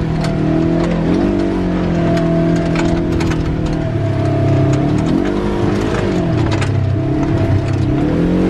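Dune buggy engine running as it drives a rough trail, its pitch steady at first, then dipping and climbing twice as the throttle changes, with scattered clicks and knocks.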